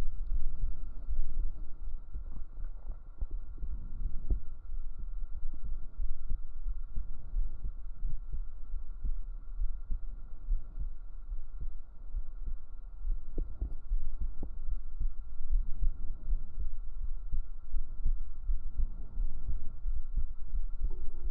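A person's deep heartbeat recorded up close with binaural microphones: a steady run of low thuds.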